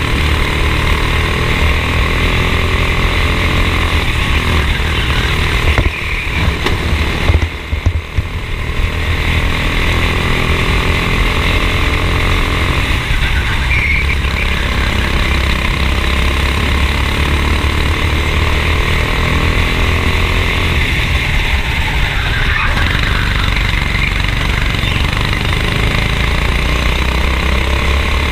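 Racing kart engine running at high revs, heard from on board the kart. Its level and pitch drop briefly about six to eight seconds in, then build back up.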